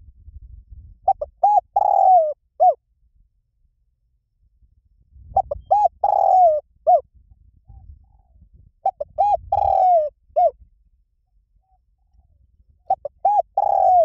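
Spotted dove cooing in repeated phrases about four seconds apart. Each phrase is a few short coos, then a longer falling coo and a short closing note. A fourth phrase begins near the end.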